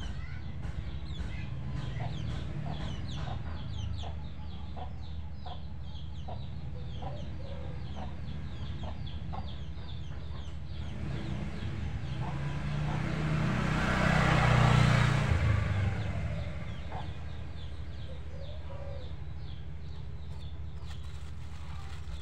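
Chickens clucking off and on, with small birds chirping rapidly over a low steady hum. About halfway through, a rush of noise swells, becomes the loudest sound, then fades.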